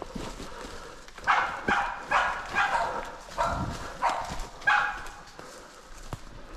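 Pig-hunting dog barking at bay, a run of about eight barks at roughly two a second that starts about a second in and stops near five seconds: the bailing bark of a dog holding a boar.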